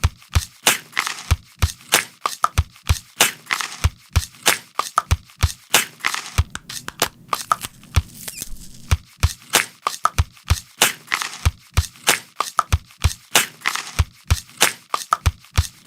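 A steady rhythmic pattern of sharp clicks and short crunchy hits made with an apple, about four strokes a second, like a percussion beat.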